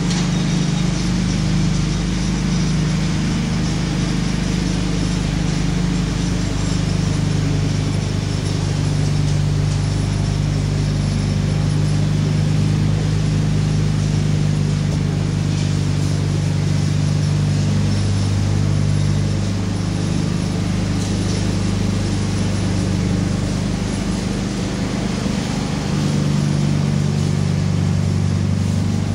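A motor running steadily with a low hum, its pitch shifting slightly about twenty seconds in and again near the end.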